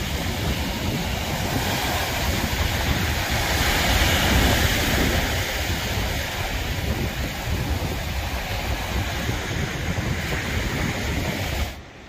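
Small sea waves breaking and washing up on a sandy beach, a steady surf wash that swells about four seconds in, with wind buffeting the microphone underneath.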